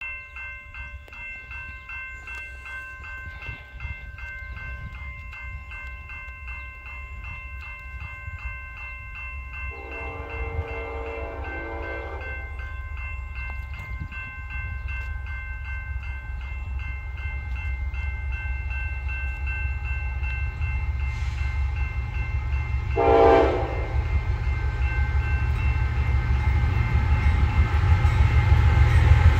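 Approaching diesel freight train: a low rumble that grows steadily louder. The locomotive horn sounds in the distance about ten seconds in for about two seconds, then again briefly and louder near the end. A high, fast-pulsing ringing runs in the background and fades out about two-thirds of the way through.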